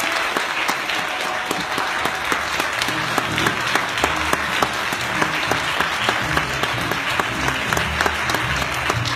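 A congregation applauding, dense and steady. About three seconds in, low sustained music notes begin underneath the clapping.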